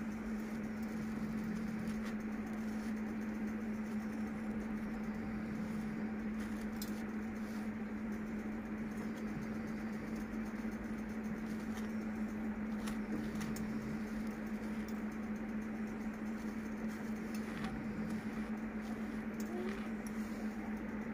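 A steady low hum runs throughout, with a few faint scrapes and clicks from a knife spreading crunchy peanut butter on a slice of bread.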